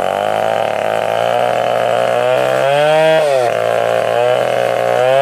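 Stihl 070 two-stroke chainsaw running hard, its engine pitch climbing, then dropping sharply about three seconds in before picking back up, as the engine speed rises and falls with load.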